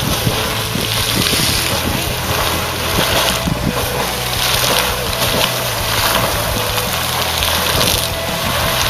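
Geyser erupting: a steady rush of water and steam, with wind buffeting the microphone and slow surges in the hiss.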